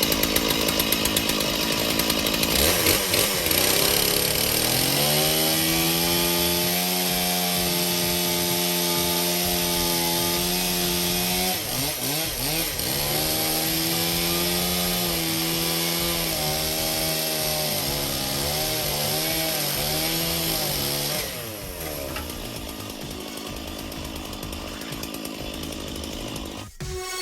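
Chainsaw running at high revs with a loud hiss, its engine note rising about four seconds in, dipping briefly near twelve seconds, then dropping away about twenty-one seconds in.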